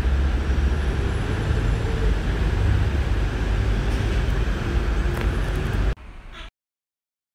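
Steady outdoor background noise: a low rumble with hiss, heavy in the low end. It cuts off abruptly about six seconds in, and dead silence follows.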